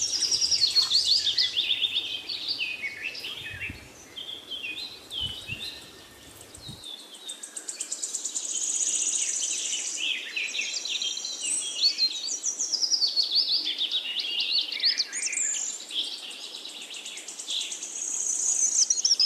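Birds singing: a dense run of chirps, whistled sweeps and rapid trills, several songs overlapping, with a few faint low thumps in the first several seconds.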